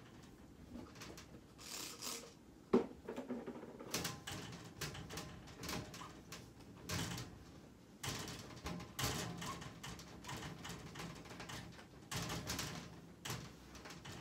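Household items being handled and sorted by hand on the floor: an irregular run of clicks, small knocks and rustles, with one sharp knock about three seconds in.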